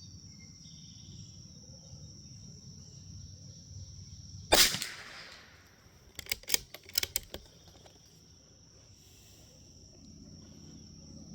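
A single shot from a Bergara B14R bolt-action .22LR rifle firing Geco lead round-nose ammunition, a sharp crack with a short echo about four and a half seconds in. About a second and a half later comes a quick series of sharper, quieter metallic clicks, the bolt being worked to eject the case and chamber the next round.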